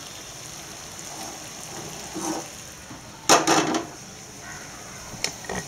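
A metal cooking vessel clanks against a gas stove's grate as it is moved to another burner, with one loud clatter about halfway through and a few light clicks near the end.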